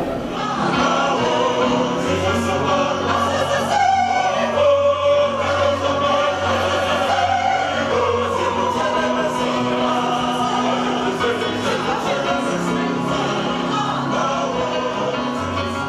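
Choral music: a choir singing held notes, with a low sustained bass coming in about two seconds in.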